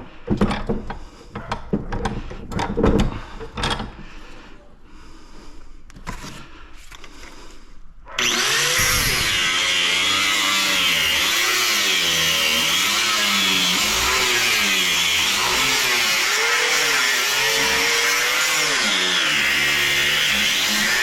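Knocks and clatter of metal parts being handled, then about eight seconds in a power tool starts suddenly and runs continuously, its pitch rising and falling as it bogs and recovers under load while cutting into the scrap.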